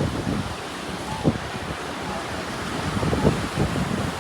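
Wind buffeting the microphone over a steady wash of surf, with a couple of brief gusts thumping on the mic.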